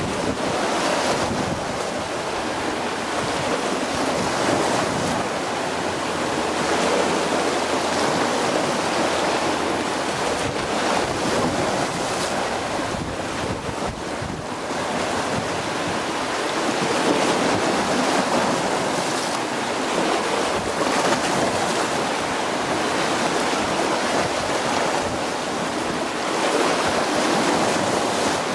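Sea waves washing in calm weather, with wind gusting on the microphone; the noise swells and eases every few seconds.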